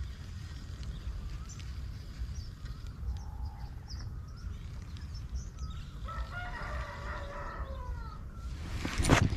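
A rooster crows once, a long wavering call of about two seconds, over a steady low rumble. Just after it comes one short, loud thump.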